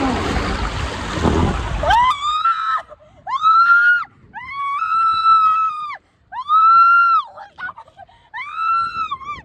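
A woman screaming while riding down a water slide: five long, high screams, each held for about a second, after about two seconds of loud rushing noise at the start.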